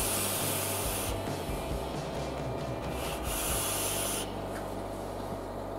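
E-cigarette being vaped: the sizzle of the atomizer coil and the airy hiss of a long draw and of vapor breathed out, in two stretches of high hiss, the second about three seconds in, over a low steady hum.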